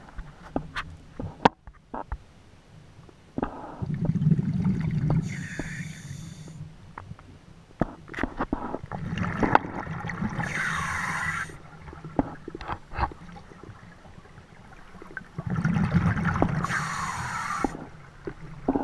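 A scuba diver breathing underwater through a regulator, three breaths about six seconds apart. Each is a low bubbling rumble of exhaled air followed by the hiss of the regulator on the inhale. Scattered small clicks fall between the breaths.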